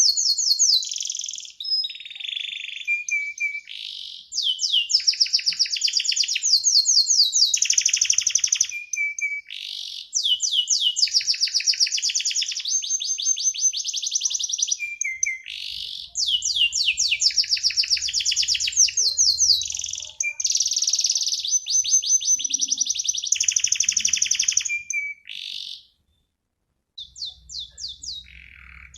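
Domestic canary singing vigorously: long phrases of rapid, high-pitched trills and rolling repeated notes mixed with chirps, one phrase after another, broken by a brief silence near the end.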